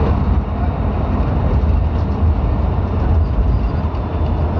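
Steady low rumble of engine and tyre noise heard from inside a moving vehicle travelling on a wet road.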